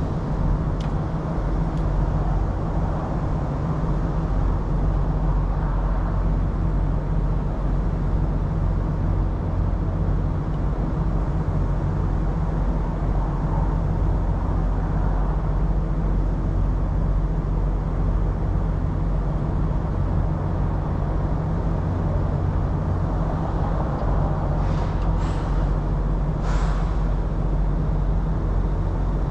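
Semi truck's diesel engine idling steadily with a constant low hum. Two short hisses come near the end.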